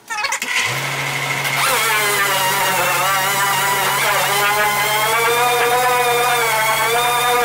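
Pneumatic dual-action (DA) sander running on body filler, roughing it in with 80-grit paper: a steady whine with a hiss, its pitch dipping briefly a few times as it is pressed onto the panel, over a steady low hum.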